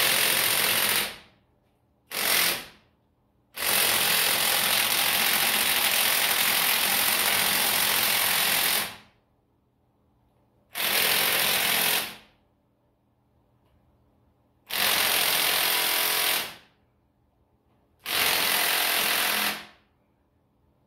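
Cordless impact wrench hammering in six bursts, the longest about five seconds, loosening bolts on top of a tractor's diesel engine.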